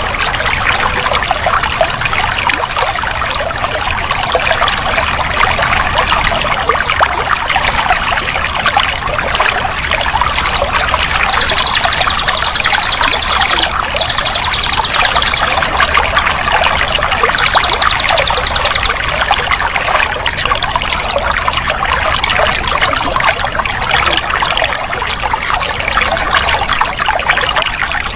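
Running water trickling and pouring steadily. A rapid high-pitched trill breaks in three times around the middle.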